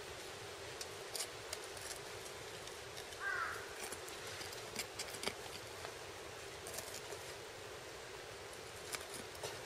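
A single harsh bird call about three seconds in, over a steady background hiss, with scattered small clicks and rustles as a knife and gloved hands work inside a deer carcass being field-dressed.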